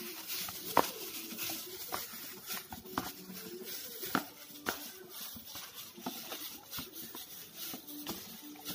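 Hand in a plastic bag kneading soft, over-wet unleavened flour dough in a plastic bowl: irregular crinkling, squishing and clicking of plastic and sticky dough. The dough has gone soft and sticky from too much water.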